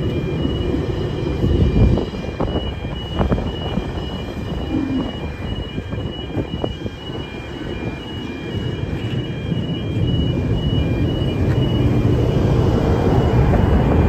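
Spirit of Queensland tilt train rolling over a level crossing: a steady rumble of carriage wheels on the rails with a few sharp knocks, growing louder over the last few seconds as the rear power car approaches. The crossing's alarm bells beep in a steady repeating two-tone pattern.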